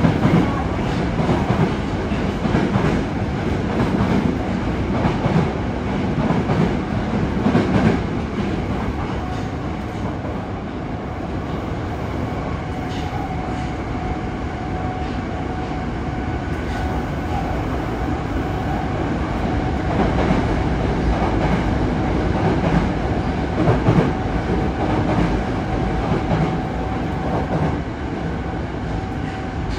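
Yokohama Municipal Subway 3000R-series train with Mitsubishi IGBT-VVVF drive, heard from inside the car while running underground. There is a steady rumble of wheels on rail with intermittent rail-joint clicks, and a faint steady whine joins in about nine seconds in.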